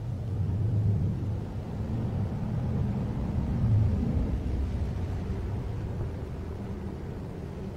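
A car passing on the street: a low engine and tyre rumble that swells over the first second, peaks about four seconds in, then slowly fades away.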